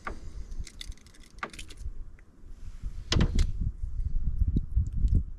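Wind buffeting the microphone, with a deep rumble that gets much louder about three seconds in. A few sharp clicks and knocks of handling sound through it, near the start, about a second and a half in, and just after three seconds.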